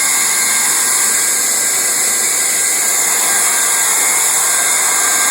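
Leister hand-held hot-air plastic welding gun with a speed-welding tip running steadily, its blower giving a constant high hiss while set near 600 °C for welding vinyl floor seams.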